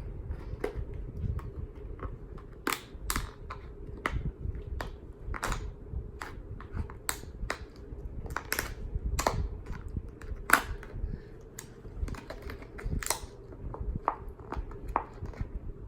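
Scissors cutting into a hard plastic toy package, with irregular snips, clicks and crackles of plastic.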